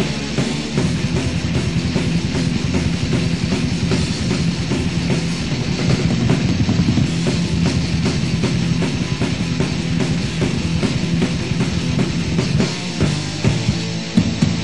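Thrash metal from a band recording: an instrumental passage of distorted electric guitars over fast drumming.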